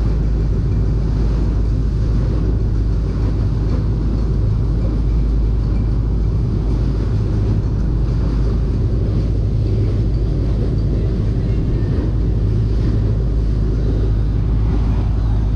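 A fishing boat's engine running steadily under way, a constant low drone, with wind noise on the microphone.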